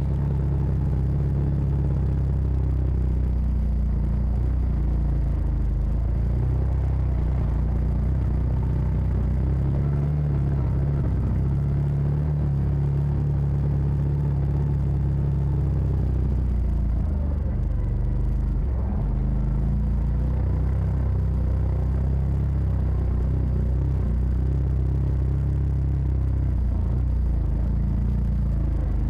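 Side-by-side UTV engine running steadily while riding a dirt trail, with its note shifting briefly about two-thirds of the way through.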